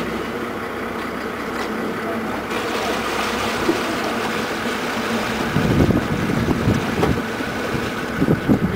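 Inshore lifeboat's outboard engine running as the boat manoeuvres alongside, with irregular low rumbling buffets over it in the second half.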